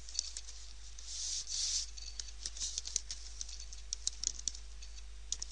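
Typing on a computer keyboard: irregular key clicks over a steady low hum and hiss.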